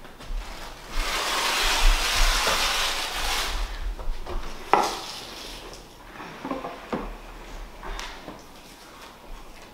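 Blue painter's tape pulled off its roll in one long rip lasting about two and a half seconds, followed by scattered light taps and rustles as picture frames are shifted on the rug.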